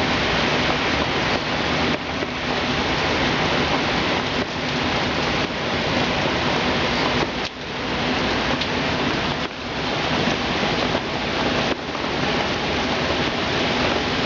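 Heavy hurricane rain and wind, a loud, steady, dense hiss that dips briefly a few times.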